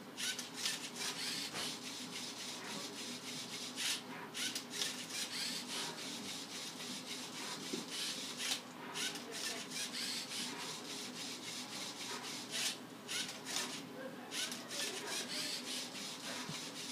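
Lego Mindstorms NXT MindCuber robot turning and tipping a Rubik's cube: its servo motors whir in short, irregular spurts and the plastic cube scrapes as it is rotated.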